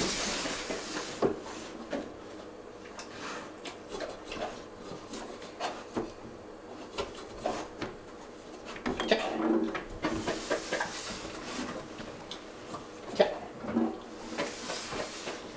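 A dog sniffing along a metal scent-detection board, nose at the holes, with scattered knocks and rubbing against the metal; the sharpest knock comes about two-thirds of the way through.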